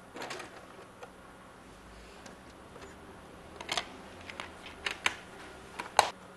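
A few irregular light clicks and knocks in a quiet room, sparse at first and then bunched in the second half, the loudest near the end.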